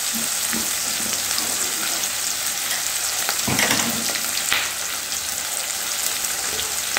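Sliced onions frying in oil in an aluminium kadai, a steady sizzle, with a steel ladle stirring and scraping against the pan a couple of times a little past halfway.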